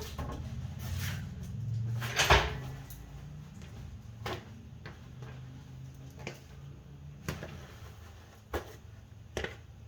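Clunks and clicks of things being picked up and set down, the loudest a sharp knock about two seconds in, over a low hum.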